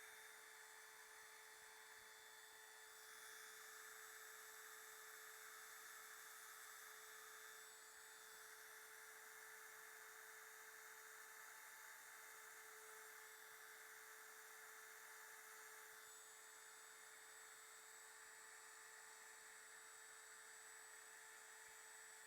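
Near silence: a faint, steady electrical hum with a thin high whine, no strokes or bursts.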